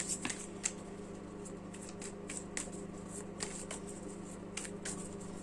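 Tarot cards being handled on a table: light, scattered flicks and taps of the cards, over a faint steady hum.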